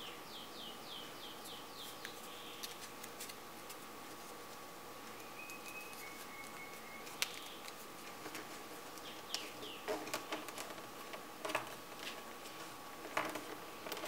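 A bird chirps a quick run of about seven short falling notes near the start, and twice more later, over a faint steady high hum. In the second half, dry crinkles and small taps come from a strip of paper being folded by hand.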